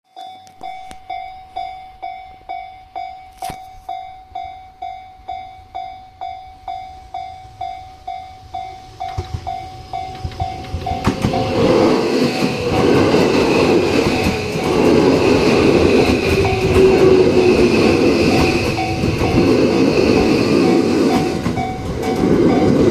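Japanese railway level-crossing warning bell ringing in an even rhythm, nearly two strikes a second. About eleven seconds in, a Tobu Railway train runs through the crossing, its rumble and wheel-on-rail noise drowning the bell, which keeps ringing underneath.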